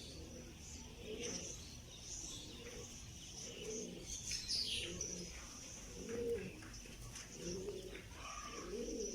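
Pigeons cooing over and over, a low call about once a second, with small birds chirping high above them and one falling whistle near the middle.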